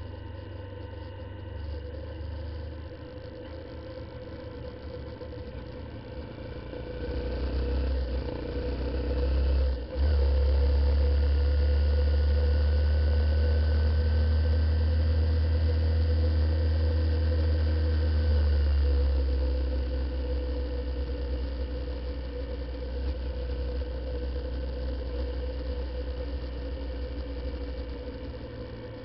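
Honda CBF125 single-cylinder motorcycle engine running on the road, with wind rumbling on the microphone. The wind rumble is heaviest from about a quarter of the way in to about two-thirds, and the engine note rises slowly in that stretch.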